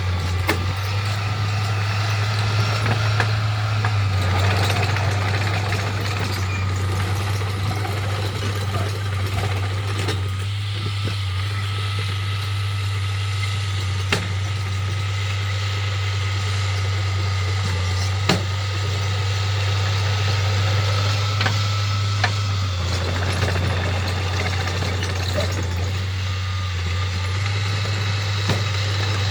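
Heavy diesel machinery running steadily with a deep engine hum, with a few sharp knocks.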